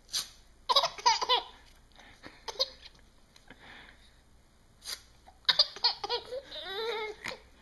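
Baby boy cackling with laughter in two bursts, about a second in and again from about five and a half seconds to near the end. Each burst follows a sheet of paper being torn in front of him, heard as short sharp rips.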